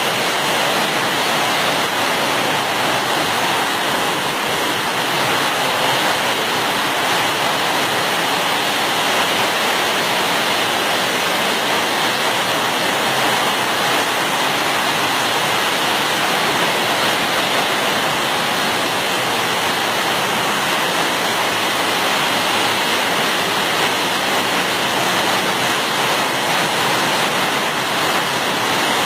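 Fast-flowing floodwater rushing past in a steady, unbroken wash.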